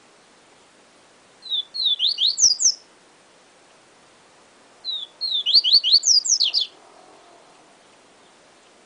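Papa-capim seedeater singing its 'siu siu' song: two short phrases about three seconds apart, each a quick run of high whistled notes sliding downward.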